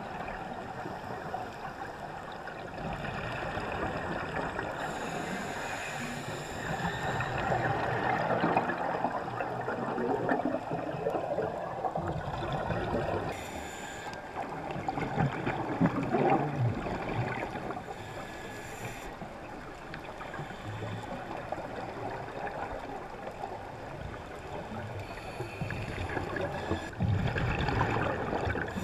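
Muffled underwater sound of scuba breathing: a regulator and bubbles of exhaled air rushing and gurgling, swelling and easing every few seconds.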